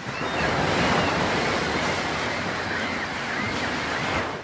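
Ocean surf: a steady wash of breaking waves that swells in at the start and drops away suddenly at the very end. Faint high wavering whistle-like calls sound over it.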